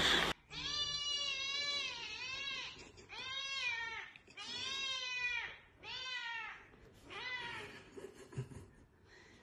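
A cat meowing over and over, about six high-pitched, drawn-out meows in a row that bend in pitch and grow fainter toward the end.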